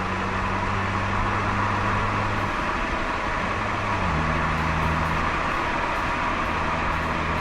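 Steady low car-engine hum while the toy car is driven, with its pitch shifting slightly about 2.5 and 4 seconds in.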